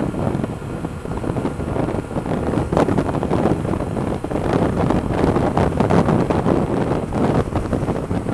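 Wind rushing and buffeting over the microphone on a moving motorcycle at road speed, with low road and engine noise underneath.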